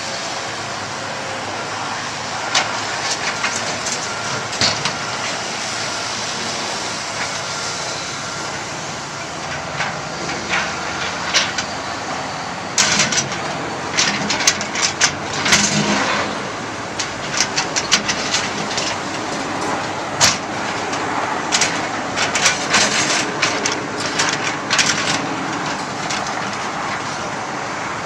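Heavy diesel construction machinery running steadily, with irregular bursts of sharp clanks and knocks from about ten seconds in, thickest in the middle and later part.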